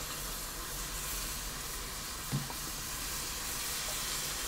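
Stew in a Dutch oven sizzling steadily, just topped up with vegetable broth.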